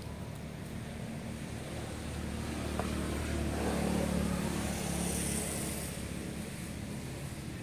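A motor vehicle's engine running, growing louder to a peak about four seconds in and then fading, as a vehicle passing by.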